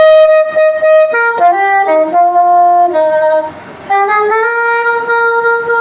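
Saxophone playing a slow hymn melody: a long held note, a quicker run of notes from about a second in, a brief break for breath, then another long held note from about four seconds in.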